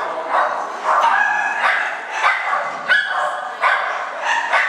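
Dog barking repeatedly: about eight short, sharp barks, roughly two a second.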